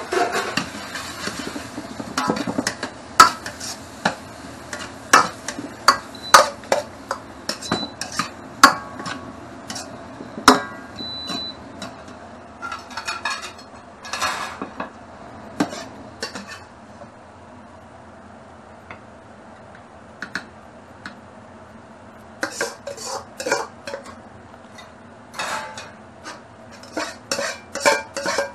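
Kitchen clatter of a metal ladle clinking and scraping in a wok, with dishes and a ceramic plate knocking. Sharp clinks come one after another, ease off for a few seconds in the middle, then pick up again near the end as the food is scraped from the wok onto the plate.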